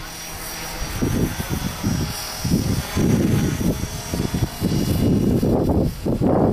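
A small belt-driven collective-pitch RC helicopter flying, with a steady high whine from its motor and rotors. Gusty wind rumbles on the microphone over it, light at first and buffeting hard from about a second in.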